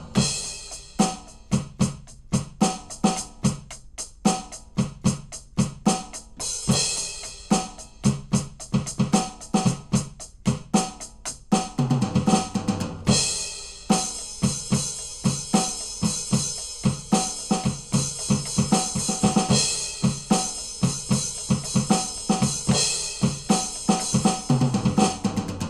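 Aroma TDX-21 electronic drum kit on its jazz kit preset, played as a steady groove of kick, snare and cymbal hits. There is a tom fill about halfway through and another near the end. From about halfway on, a cymbal rings continuously under the beat.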